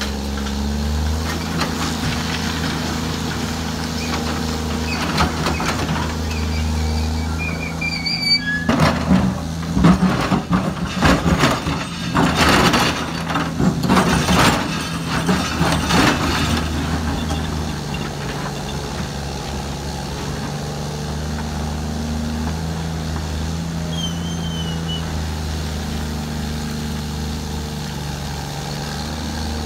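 Diesel engine of a Samsung SE350LC-2 excavator, a larger replacement engine running without its engine cover, working steadily with a constant low hum. From about a third of the way in, for several seconds, the steel bucket scrapes and clatters through broken rock.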